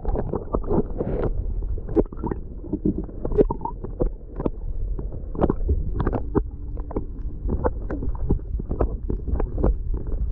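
Water heard from under the surface: a muffled, steady low rumble of moving water, dotted with irregular bubbling clicks and small knocks.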